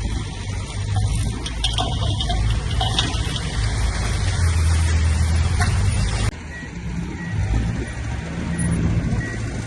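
Diesel engine of heavy earthmoving machinery running steadily, with scraping and rumbling over it. About six seconds in the sound cuts off abruptly to a quieter engine, over which faint short high beeps repeat.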